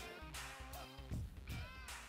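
Quiet background music playing under the end card.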